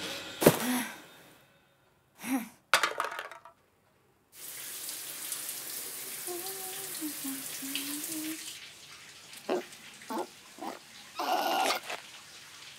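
A sharp click and a few short knocks in near silence, then a shower running, a steady hiss of water, with a voice humming over it for a couple of seconds. Near the end come a few short scattered sounds.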